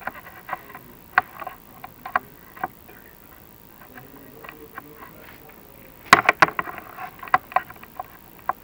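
Chimney inspection camera and its cable knocking and scraping against the flue tiles and mortar as it goes down a masonry flue: irregular clicks and knocks, with a quick run of louder knocks about six seconds in.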